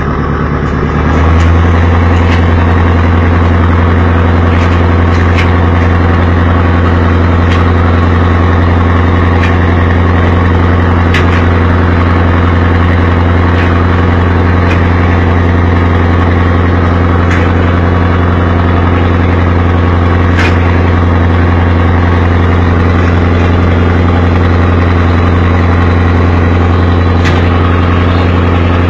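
Fishing boat's engine running steadily, a deep even hum that grows louder about a second in. Faint sharp clicks come and go over it.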